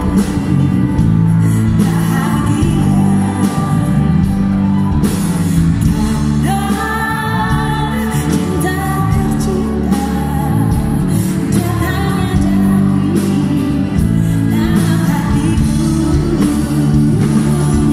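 A female pop singer singing live into a microphone, backed by a band, amplified in a large hall.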